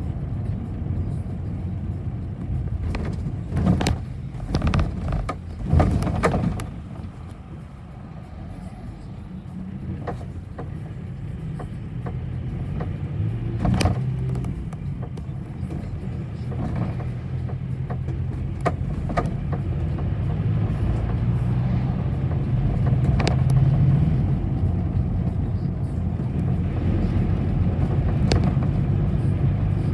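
A city bus heard from inside the cabin: its engine runs with a steady low rumble, and the body rattles and knocks sharply over bumps a few seconds in. The sound dips quieter briefly, then the engine note builds again as the bus gathers speed.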